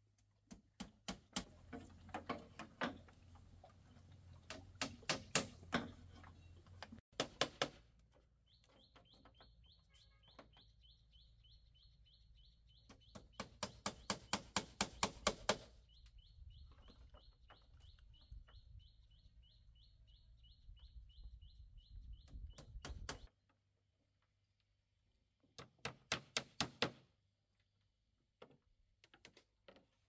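Bursts of rapid knocks, about four a second, come several times, each burst lasting one to two seconds. A high, fast-pulsing trill runs through the middle stretch and stops suddenly near the end, and a low steady hum sits underneath.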